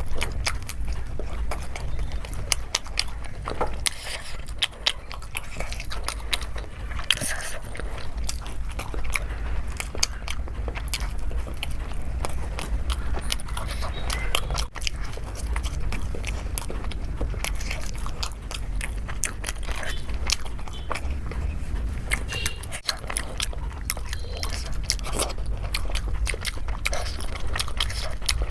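Close-miked eating: a person biting and chewing food, with a dense run of small, irregular mouth clicks and crunches over a steady low hum.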